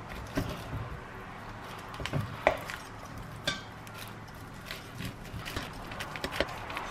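Wire potato masher mashing peeled bananas in a stainless steel bowl: soft squishing with irregular clinks and knocks as the masher hits the bowl, the loudest about two and a half seconds in.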